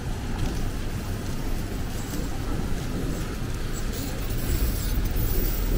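Street traffic on a rain-wet road: cars passing close with engine and tyre noise, the low rumble growing louder near the end.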